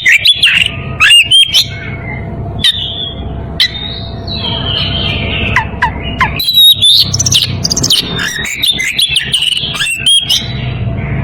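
Oriental magpie-robin (kacer) singing a loud, varied song of sharp chips and whistles, with a sparser passage of a few falling whistles midway. The bird is in breeding condition, calling out to a rival.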